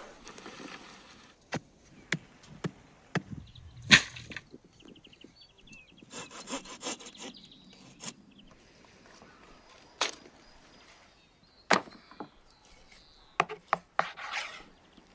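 A run of short hand-work sounds: soil tipping out of a wheelbarrow fades away at the start, then a knife whittling and scraping a wooden stake, sending off chips, with separate sharp knocks, the loudest about four seconds in. Near the end comes a short scrape as a knife works into a carcass.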